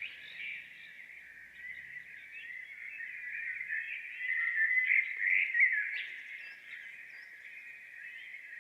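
Recorded birdsong played through the small speaker of a NURSAL white noise machine: a steady stream of chirps and short whistled glides, thin and narrow in tone, a little louder about five seconds in.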